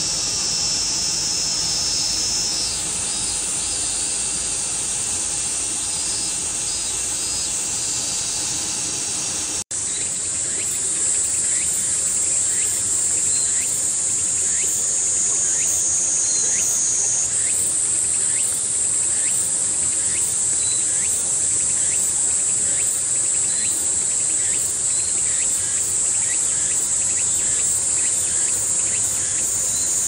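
Summer cicadas buzzing in a steady, high-pitched chorus. The sound cuts out for an instant about ten seconds in, then carries on a little louder with a slight shift in pitch.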